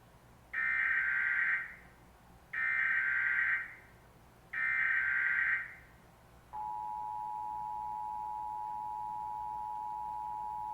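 Emergency Alert System test: three one-second bursts of the SAME digital header data tones, which encode the alert, followed about six and a half seconds in by the steady two-tone EAS attention signal.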